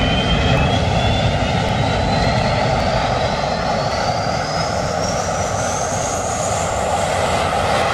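A delta-wing fighter jet's engine starting up on the ground: a loud, steady roar with a turbine whine that climbs steadily in pitch as the engine spools up.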